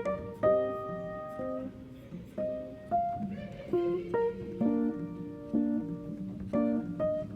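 Background music: a gently plucked acoustic guitar melody.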